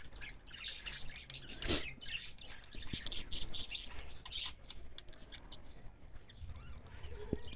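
Small birds chirping faintly in the background: many short, scattered high chirps.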